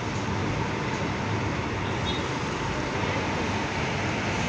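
Steady traffic noise of queued and moving buses, their diesel engines running, with no single event standing out.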